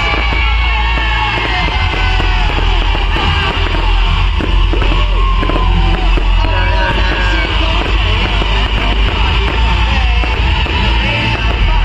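Loud music over a crowd, many voices yelling and singing at once, with a heavy steady low rumble beneath.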